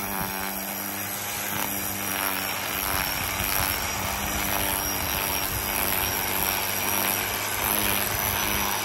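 Corded electric string trimmer running steadily, its single nylon line whirring as it cuts the grass edge.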